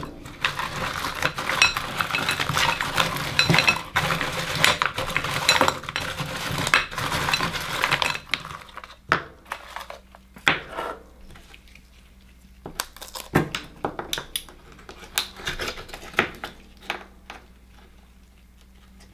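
Akoya oyster shells clattering against one another and against a glass bowl as gloved hands pick through the pile, a dense run of clinks for about eight seconds. After that, scattered clicks and taps as a shell is set down on a wooden cutting board and an oyster is worked open with a knife.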